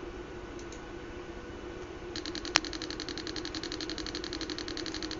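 Small speaker driven by an Arduino Mega2560 that starts crackling about two seconds in: a fast, even train of high clicks, about ten a second, with one sharper click just after it begins, over a steady low hum. The crackle comes from the speaker as it plays its programmed tone.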